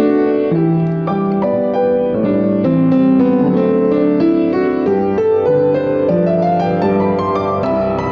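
Solo piano playing: notes struck in quick succession, several ringing over one another at a time.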